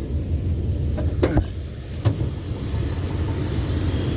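Dodge Dakota's 318 (5.2 L Magnum) V8 idling with a steady low rumble; the engine is worn and already knocking, which the owner takes for a rod knock. A couple of sharp clunks land about a second and two seconds in as the hood is opened over the running engine.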